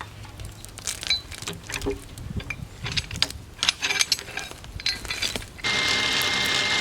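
Log-arch winch and rigging at work: irregular metal clanks, chain rattles and ratcheting clicks, then the winch runs with a steady whine for about a second near the end.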